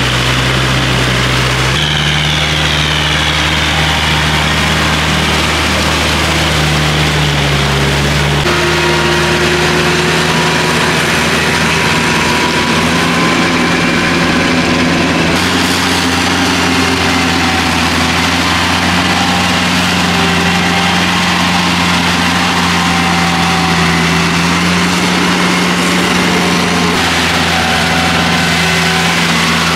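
Kubota tractor's diesel engine running steadily under load as it drives a rear rotary tiller through a flooded paddy field. The engine's pitch steps up or down abruptly a few times.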